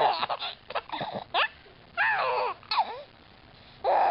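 A baby laughing in short high squeals, between short, sharp hiccups from a woman.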